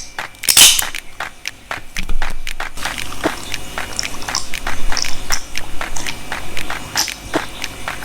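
Eating and food-handling sounds: a quick run of sharp clicks and taps, with biting and chewing.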